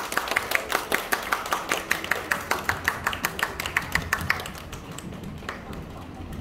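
Audience clapping together in a steady quick rhythm, about five claps a second, stopping about four seconds in, leaving a low room murmur.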